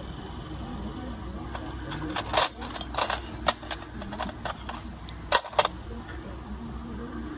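A run of sharp metallic clicks and clinks from steel pedicure tools being handled against each other and a metal tray, irregular and spread over a few seconds, with a sharp pair of clinks about two-thirds through.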